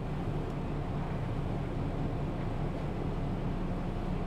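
Diesel railcar engine running steadily, a low even hum.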